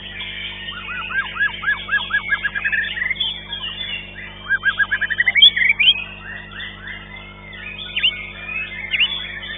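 White-rumped shama (murai batu) singing a fast, varied song: quick runs of repeated sweeping chirps about a second in and again around four and a half seconds, mixed with whistles and with other birds singing over it.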